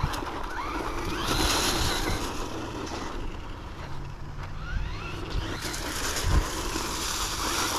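Hosim X-07 1/10-scale RC truck on a 2S LiPo battery: its electric motor whines up in pitch as it accelerates, twice, with its tyres hissing over leaf-strewn asphalt. A low thump comes a little after six seconds in.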